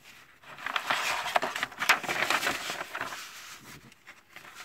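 Paper rustling and crackling as a page of a printed instruction booklet is turned and smoothed flat by hand. It starts about half a second in and dies away after about three seconds.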